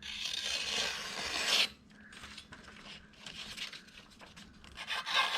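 Freshly sharpened kitchen knife drawn through a cut in two long rasping strokes, each about a second and a half, with a quiet gap between.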